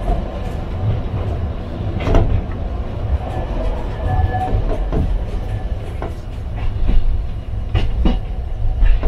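Toden Arakawa Line streetcar running along its track: a steady low rumble with about five sharp clicks at irregular intervals as the wheels cross rail joints.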